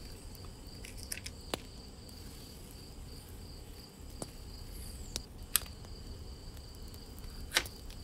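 Faint steady hiss with a thin high tone, broken by a few soft clicks and ticks as washi tape and paper are handled on a desk.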